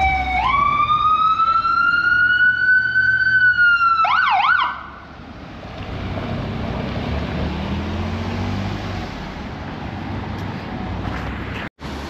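Emergency rescue truck's siren wailing in one long, slow rise and fall, switching to a fast warble about four seconds in and then cutting off. After it, the engine and tyre noise of the passing vehicles.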